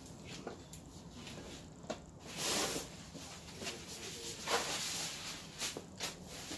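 Handling noise while a large TV panel is fitted into its frame: scattered light clicks and knocks, with two louder rustling swells about two and a half and four and a half seconds in.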